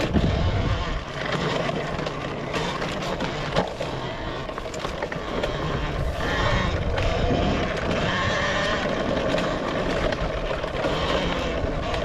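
Talaria Sting electric dirt bike ridden fast along an overgrown trail: a steady rush of tyres, wind and grass swishing past, with frequent knocks from the bike over bumps. From about halfway a faint whine from the electric motor rises above the rush.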